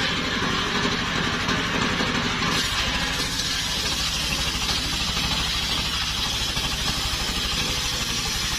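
Engine-driven mobile circular sawmill running steadily, its engine pulsing evenly. From about two and a half seconds in, the large circular blade rips along a log and adds a harsh, hissing cutting noise.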